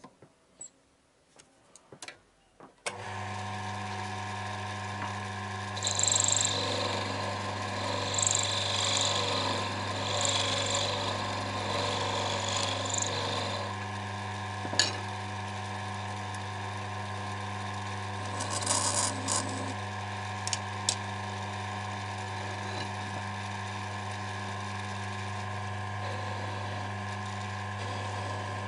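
A few handling clicks at the lathe, then about three seconds in a small lathe's motor starts and runs with a steady hum. For several seconds after that, and again briefly later, a rougher scraping rides over the hum as a cutting tool is worked against the spinning wooden piece.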